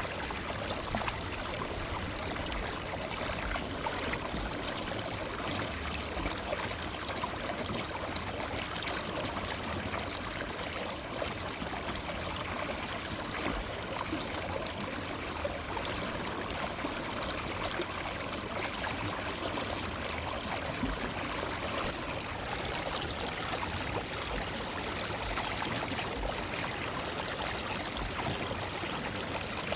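Forest river flowing steadily over stones, an even rushing with small trickles and gurgles.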